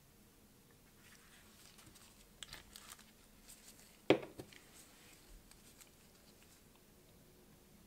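Gloved hands handling a glue bottle and small 3D-printed plastic parts on a paper towel: faint rustles and light clicks, with one sharp knock about four seconds in.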